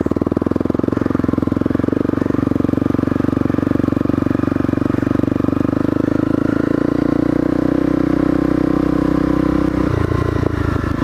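Honda CRF250L's single-cylinder four-stroke engine running at steady low revs as the bike is ridden through deep mud, its firing pulses even; about ten seconds in the note drops lower.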